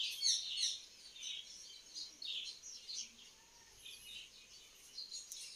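Birds chirping in the background: quick, high chirps repeated again and again, fainter after the first second.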